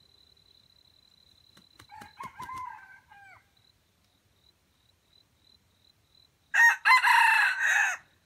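Red junglefowl rooster crowing twice: a fainter crow about two seconds in, then a loud full crow about a second and a half long near the end.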